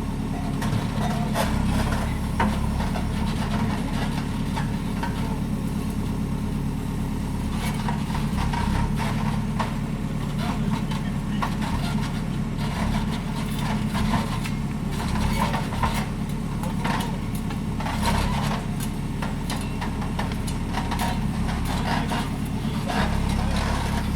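Bobcat skid-steer loader's engine running steadily while it works dirt, with scattered clanks and knocks from the machine and bucket.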